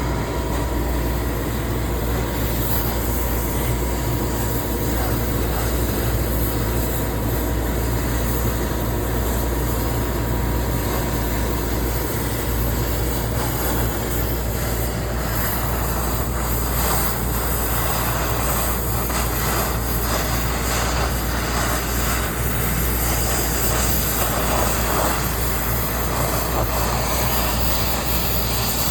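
Machine-shop machinery running continuously: a steady low hum under a broad mechanical rumble and hiss, turning rougher and grittier from about halfway through.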